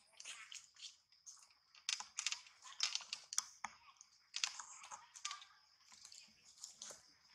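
Dry leaf litter crackling and rustling in irregular short bursts, over a faint steady high-pitched drone.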